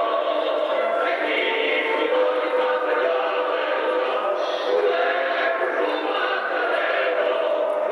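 A group of voices singing together without a break, a song of held notes.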